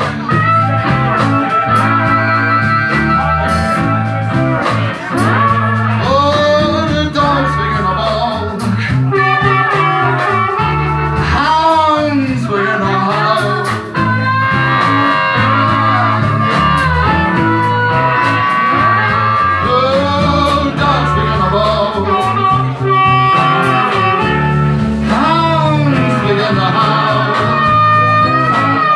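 Live blues band playing, led by a harmonica solo cupped to a microphone, with bending, wailing notes over electric guitar and drums.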